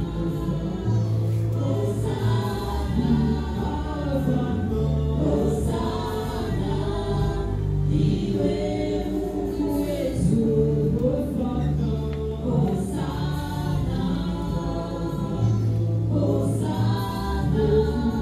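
Background music: a choir singing over held bass notes.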